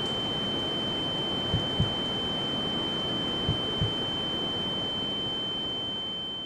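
Film sound-design effect of ringing ears and a heartbeat: a steady high-pitched ringing tone over a low hiss, with two double heartbeat thumps, the first about a second and a half in and the second about three and a half seconds in. The whole sound fades out near the end.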